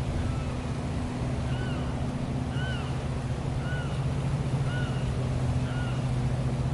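A steady motor hum with wind noise, and a bird giving a short, arched call about once a second.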